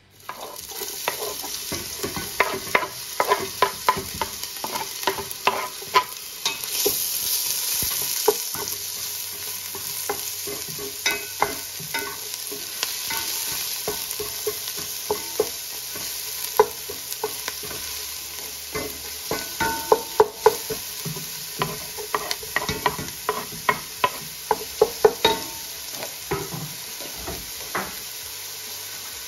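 Chopped red onion and garlic sizzling in hot oil in a stainless steel pot, stirred with a wooden spoon that knocks and scrapes against the pot many times.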